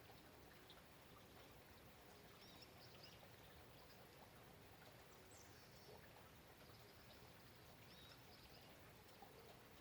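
Faint, steady hiss of falling rain, with a few soft high bird chirps in the background.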